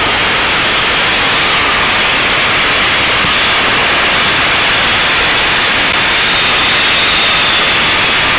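Loud, steady hiss inside the cockpit of an aerobatic plane in flight: an even rush of airflow and engine noise with no distinct engine note.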